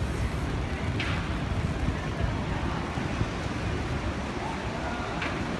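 Steady city street traffic on a rain-wet road: a continuous low rumble of passing cars, with a brief hiss about a second in.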